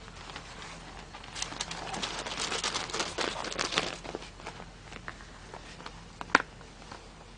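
Newspaper crackling and rustling under bulldog puppies' paws as they scramble about, thickest for a couple of seconds in the middle. A single sharp knock comes near the end.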